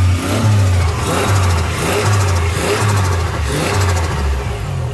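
Nissan 300ZX Turbo's turbocharged V6 revved in a series of throttle blips through a new MSA aftermarket exhaust, rising and falling about once a second.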